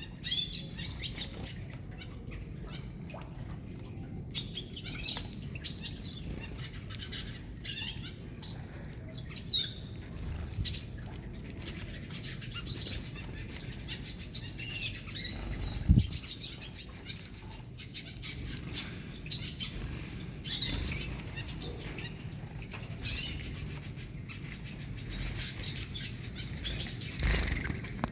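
Gouldian finches giving short, high chirping calls on and off, with wing flutters and small clicks. A single low thump, the loudest sound, comes a little past halfway.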